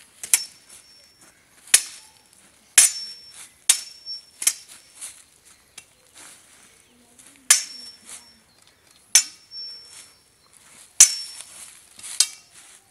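Steel swords clashing in a sparring bout: about ten blade-on-blade strikes at an uneven pace, several of them ringing on with a high metallic tone after the hit.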